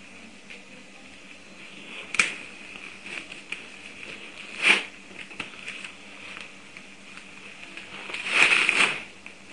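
Phone book being torn apart by hand: three bursts of ripping paper, a short sharp one about two seconds in, another about halfway through, and a longer, louder tear near the end.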